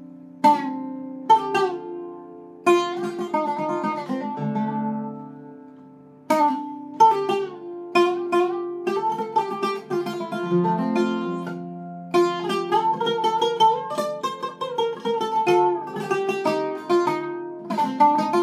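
Iraqi-style Zeryab oud with a cedar top and Kürschner strings, played solo. A few spaced plucked notes are left to ring at first, then quicker melodic runs start about six seconds in and grow denser through the second half.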